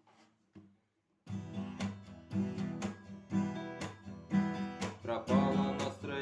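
Acoustic guitar strumming a song intro in a steady rhythm, about two sharp strokes a second, starting after a second of faint fumbling. About five seconds in a voice comes in singing over the guitar.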